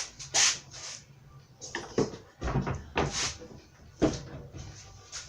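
Handling noises: a few separate knocks and rustles as things are moved about and a container is fetched, like a cupboard or drawer being opened and shut.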